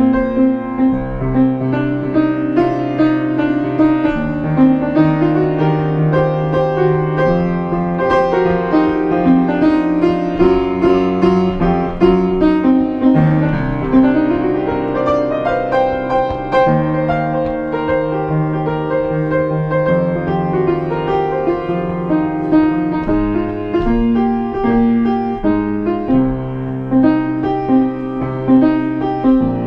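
Piano playing a slow, sustained instrumental passage with held bass notes and chords.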